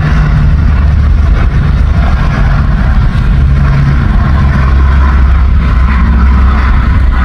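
Steady, loud engine rumble and running noise of a moving motor vehicle, with a low hum under it.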